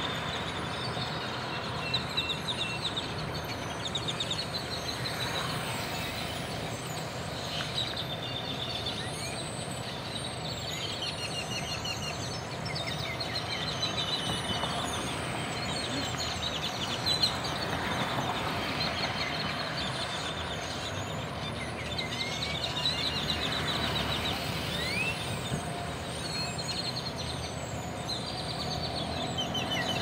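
A large flock of tordos (blackbirds) chattering as they settle into a roost tree, with many overlapping chirps, rapid trills and occasional rising whistles, over a steady hum of road traffic.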